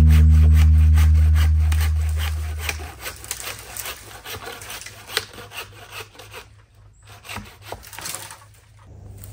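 A music track's low held chord fades out over the first three seconds. Then come irregular woody clicks and scrapes, with no engine running.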